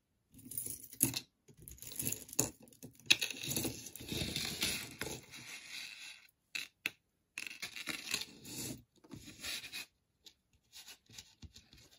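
Rustling, rubbing and scraping as pieces of costume jewelry are handled, in irregular bursts. Near the end it thins to a few scattered light clicks.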